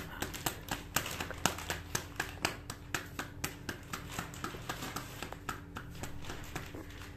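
A soft ball of dough slapped back and forth between wet palms, hand-flattening it into a round for a paratha: rapid, even slaps about four a second that thin out near the end.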